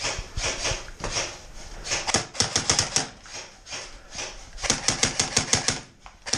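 Airsoft rifle firing rapid bursts of shots at about ten a second, three bursts in all, sharp clicky reports.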